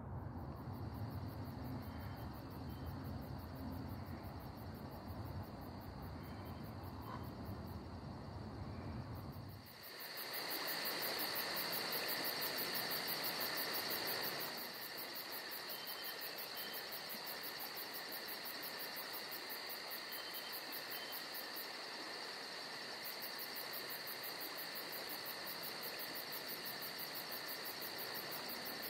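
Insects trilling steadily in a high, even chorus. A low rumble runs under it for the first ten seconds and cuts off suddenly; the trilling is loudest for a few seconds after that.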